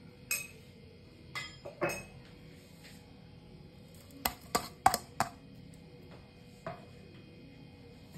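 Utensils clinking against a glass mixing bowl as chilli flakes and chopped coriander are added. A few sharp clinks come in the first two seconds, a quick run of about five comes halfway through, and one more follows near the end.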